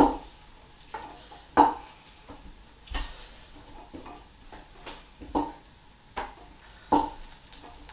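Wooden rolling pin rolling out flatbread dough on a wooden chopping board, with a short knock every second or so as the pin meets the board.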